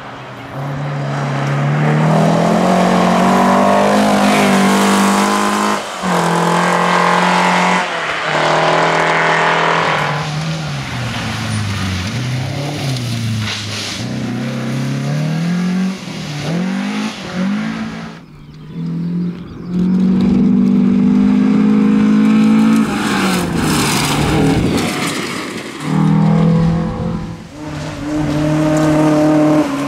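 Air-cooled flat-four engines of Volkswagen Beetle rally cars revving hard past at full throttle, the pitch climbing and dropping again and again as they change gear and lift for corners. The sound cuts abruptly several times from one car pass to the next.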